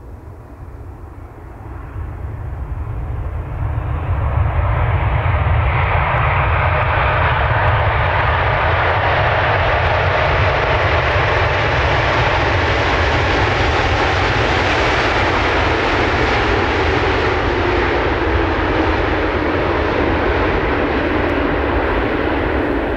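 Boeing 747's four jet engines on landing approach, growing louder over the first four seconds as the aircraft nears, then a steady, loud roar. A faint whine slides down in pitch near the end as it passes.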